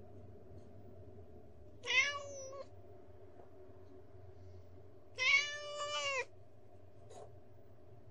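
Kitten meowing twice: a short high meow about two seconds in, then a longer one a few seconds later.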